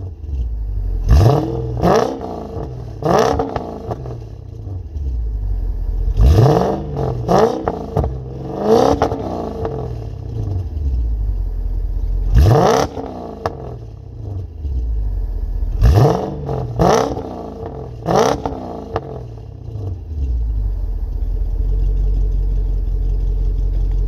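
Mercedes W210 E430's V8, fitted with Porsche 928 headers, an X-pipe, an Eisenmann cat-back exhaust and Kleemann camshafts, revved from idle in about ten quick throttle blips heard at the tailpipes. It settles to a steady idle for the last few seconds.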